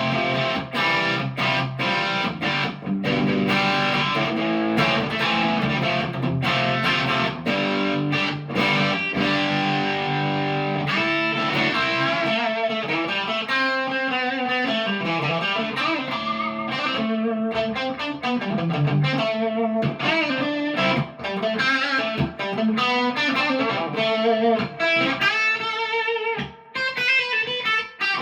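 PRS McCarty 594 Hollowbody II electric guitar played through an amplifier: held chords for the first ten seconds or so, then single-note lead lines with bent, wavering notes.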